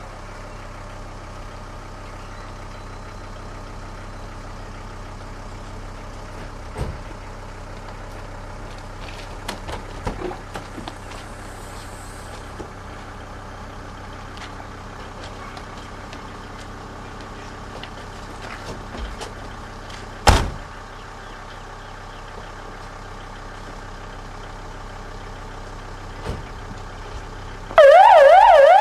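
A steady low hum with scattered knocks and one sharp thud about two-thirds through. About a second before the end an emergency-vehicle siren starts loud, wailing quickly up and down.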